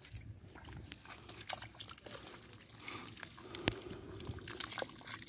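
Bare hands scooping wet, waterlogged mud out of a water-filled hole: irregular wet squelches, drips and small splashes. One sharper click stands out about three and a half seconds in.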